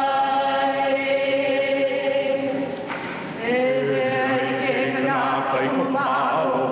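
A group of voices chanting a Hawaiian chant in unison on long held notes. The first note breaks off about three seconds in, and after a breath a new note begins that wavers in pitch near the end.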